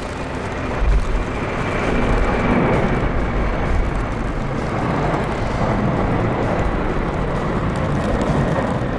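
Boeing 747-400 four-engine jet airliner climbing out after takeoff: steady, dense jet engine noise with a deep rumble underneath and a faint high whine that fades a few seconds in.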